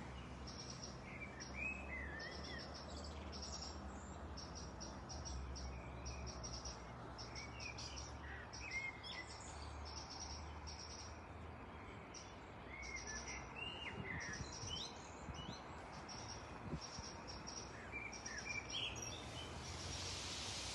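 Birds chirping in short rising and falling calls over a fast, high, cricket-like pulsing trill, with a low steady hum underneath.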